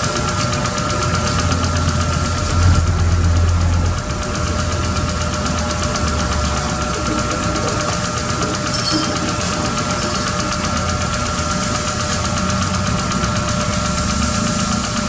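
Toyota Innova engine idling steadily, with a low rumble swelling briefly about three seconds in.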